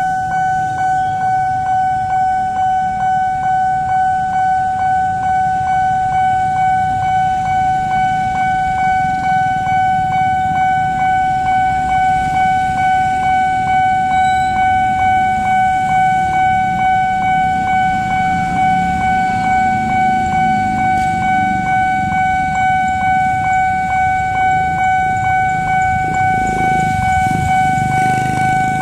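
Railway level-crossing warning alarm: a steady high electronic tone pulsing about twice a second, over the low rumble of a passing train and waiting traffic.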